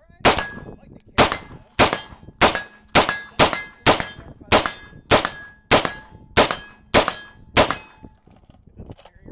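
AR-15 rifle chambered in 7.62x39 firing semi-automatic shots, about thirteen of them at a steady pace of roughly one every half second. The firing stops about three-quarters of the way in. A faint ringing tone lingers after several of the shots.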